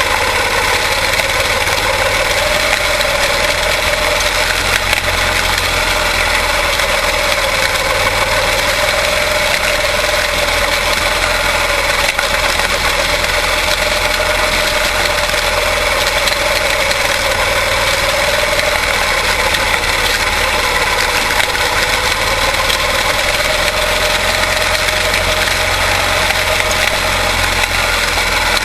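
Quarter midget race cars' single-cylinder Briggs & Stratton Animal engines running steadily, one engine note holding a slightly wavering pitch with no clear revving up or down.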